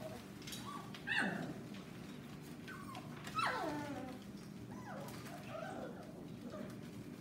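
A litter of puppies making high cries while they play and wrestle: two louder calls that slide down in pitch, about a second in and again about three and a half seconds in, with smaller yips in between and after.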